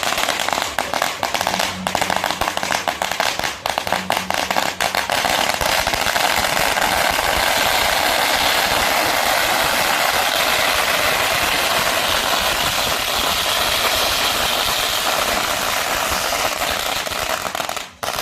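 A long string of firecrackers going off in rapid sharp bangs. After several seconds the bangs merge into a dense, continuous crackle, which cuts off suddenly near the end.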